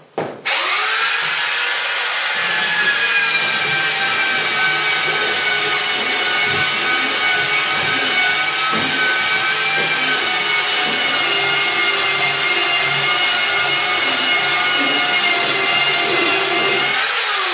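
A 3-inch handheld belt sander starts up about half a second in, its whine rising as it spins up, then runs steadily with a high-pitched whine while grinding across wooden floorboards in a swirling pattern.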